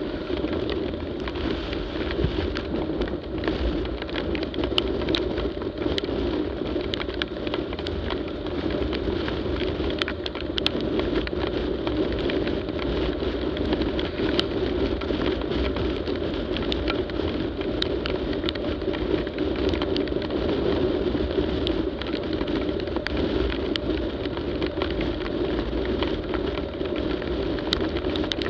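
Motorcycle riding at road speed on a wet highway in rain: a steady mix of wind, engine drone and tyre hiss on the wet road, with scattered small ticks of raindrops hitting the camera.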